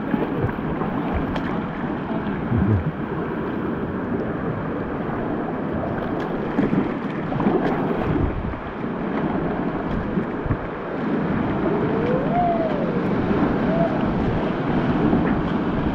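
Whitewater rushing and churning around a kayak, with paddle strokes splashing and wind buffeting the microphone. The water gets a little louder past the middle as the boat runs into the rapid.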